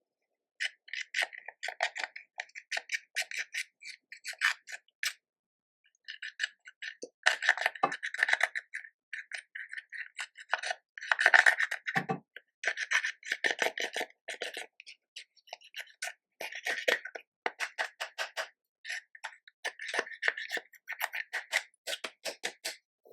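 Slime being kneaded and pressed by hand, giving rapid sticky clicks and small air-bubble pops, with a short pause about five seconds in.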